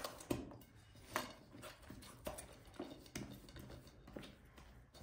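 Hands kneading very soft yeast dough in a glass bowl: irregular soft slaps and squishes, roughly two a second.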